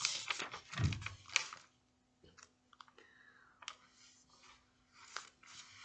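Paper page of a paperback book being turned by hand: a quick run of papery rustles and clicks with a soft thump about a second in. Then only faint scattered ticks and a brief rustle of fingers on the paper near the end.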